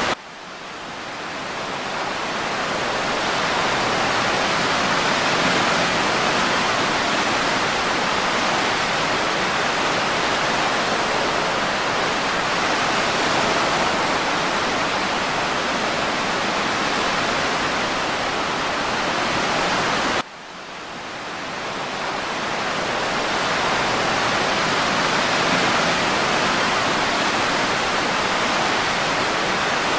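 Steady rushing noise from an ambient ocean-and-breeze track, even and without distinct wave crashes. It cuts out abruptly twice, near the start and about twenty seconds in, and each time swells back up over a few seconds, as a looped recording does when it restarts.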